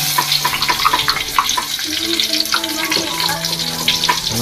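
Ground spice paste dropped into hot cooking oil in a wok, sizzling and crackling steadily from the moment it goes in.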